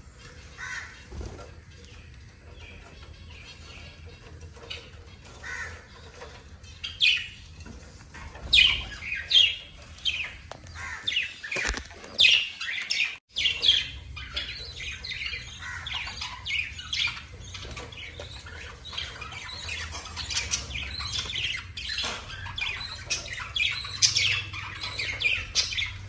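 A flock of budgerigars chirping and chattering, with many short, sharp squawks that grow busier and louder about a third of the way in.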